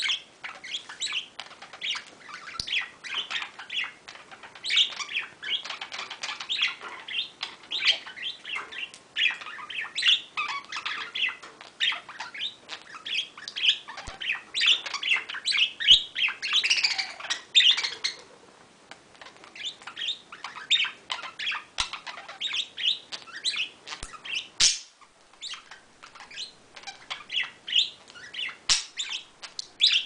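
Pet budgerigars warbling and chattering: a fast, continuous stream of chirps, squeaks and clicks that eases off briefly about two-thirds of the way through.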